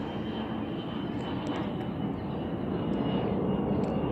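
Steady low rumble of distant engine noise, slowly growing louder, with a thin steady high tone and a few faint, short bird chirps.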